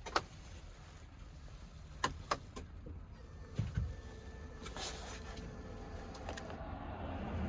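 A few sharp clicks and knocks in the cab of a Mercedes Sprinter van that will not start, with a low thud midway and a faint steady hum; no engine cranks or runs.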